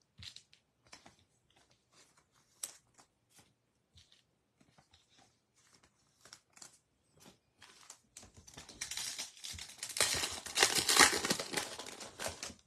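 A few faint clicks of cards being handled, then the foil wrapper of a Topps Chrome baseball card pack being torn open and crinkled for several seconds, loudest near the end.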